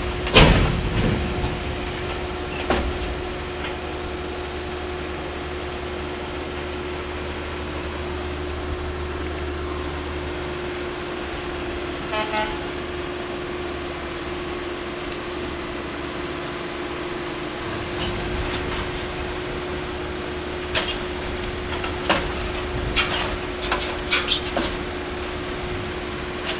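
BNSF work train of gondola cars loaded with backhoes rolling slowly past, with a steady hum and low rumble and a series of sharp clanks and knocks from the cars, the loudest right at the start and a cluster near the end. A brief horn-like toot sounds about halfway through.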